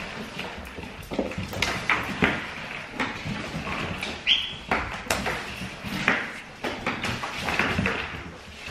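Bernedoodle puppy's paws and claws clicking and scrabbling on a laminate floor as it plays, with irregular knocks of a toy hitting the floor. There is a brief high squeak just after four seconds in.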